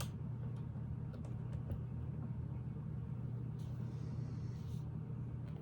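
A steady low hum, with faint small clicks and a brief rustle about two-thirds of the way through, as Lego pieces are handled and pressed together.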